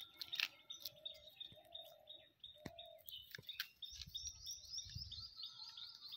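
Birds chirping: a short high chirp repeated over and over, lower calls in the first half, and a fast run of rising high notes in the second half.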